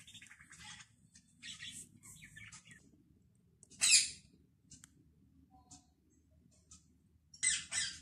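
Parrot squawking and chirping in short, high-pitched calls, with one loud squawk about four seconds in and a quick run of calls near the end.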